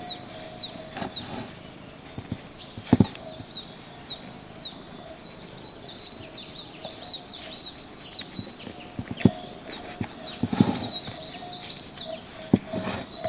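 Birds chirping steadily, a fast run of quick, high, falling chirps, with a few sharp knocks about three seconds in, around nine seconds and near the end.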